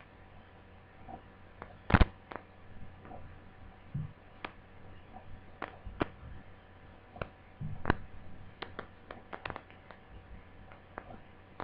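Scattered light clicks and taps from handling a laptop and its AC adapter plug, with one louder click about two seconds in.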